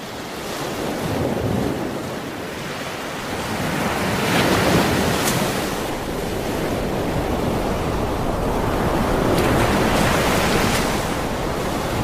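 Ocean surf: waves breaking and washing in a steady rush that swells and eases a few times.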